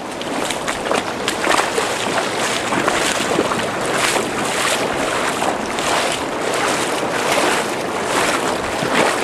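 Water splashing and sloshing in repeated strokes, about two a second, as people wade fast through shallow river water, over a steady rushing noise.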